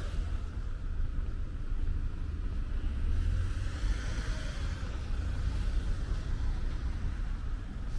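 Steady low rumble of a vehicle running.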